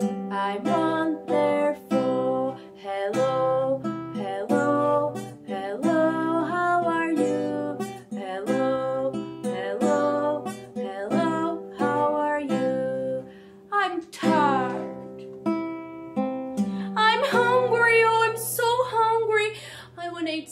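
Acoustic guitar strummed in chords, with a woman singing along.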